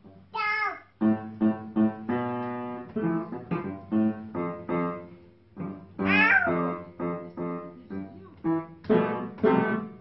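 Upright piano keys banged by a baby's hands: uneven clusters of notes struck with a sharp attack, some held and ringing, several a second at times. A couple of high, falling squeals from the baby come near the start and about six seconds in.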